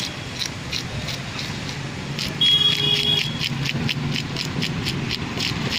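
Knife scraping the scales off a common carp on a wooden chopping stump, in quick repeated strokes about three a second. A brief high beep, the loudest sound, comes about two and a half seconds in, over a steady traffic rumble.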